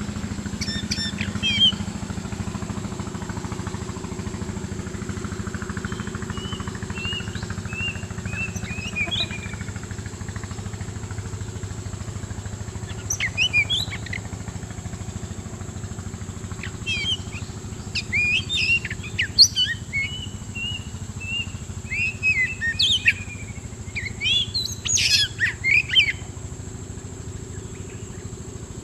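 Oriental magpie-robin singing in short bursts of varied whistled phrases, coming thicker in the second half. A steady low hum runs underneath.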